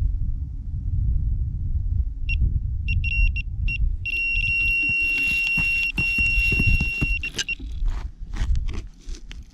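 Electronic carp bite alarm sounding a run: a few short single beeps, then a continuous high tone for about three seconds as line is pulled off, cutting out when the rod is lifted. Wind rumbles on the microphone throughout, with clicks and knocks near the end as the rod is handled.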